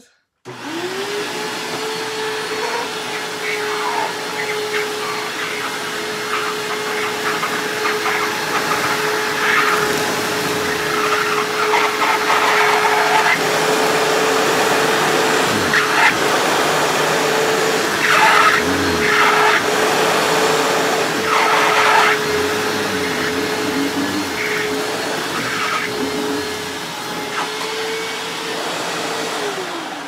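Hoover WindTunnel Self-Propelled upright vacuum switched on, spinning up about half a second in, running steadily with its brush roll through a pass over shredded paper, then switched off and winding down at the end. Intermittent squeaking over the middle stretch comes from its height-adjustment wheels.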